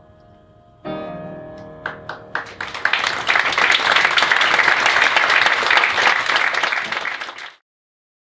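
Piano strikes the song's closing chord about a second in and lets it ring. A few scattered claps follow, swelling into full audience applause that cuts off abruptly near the end.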